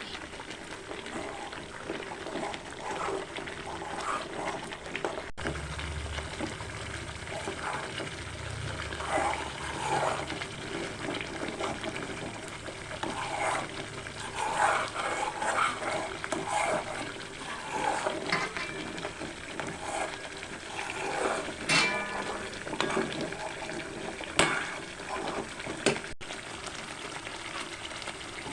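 Milk cream bubbling and sizzling in a karai as it is cooked down into ghee, its water boiling off. Two sharp knocks come past the middle.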